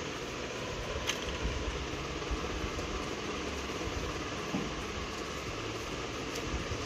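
Steady mechanical whirring of a small electric motor, with a light click about a second in and another near the end.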